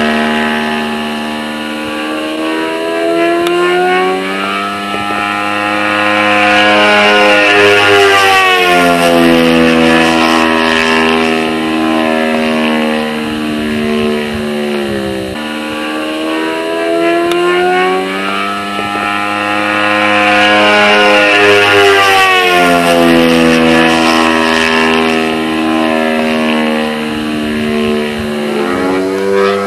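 YS 140 four-stroke glow model aircraft engine running and being throttled up and down twice: the pitch climbs over several seconds, holds high, drops sharply about halfway through, climbs again and falls back near the end.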